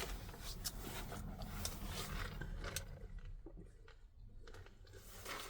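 Faint close-up eating and food-handling noises: scattered small clicks and rustles, with a quieter stretch past the middle.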